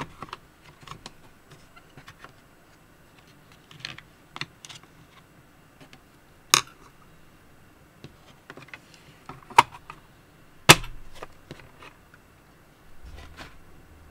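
Irregular clicks and taps from a hard Tombow MONO 100 pencil case being opened and handled and a wooden pencil being lifted out and set on a wooden table, with a few sharper clacks, the loudest about eleven seconds in.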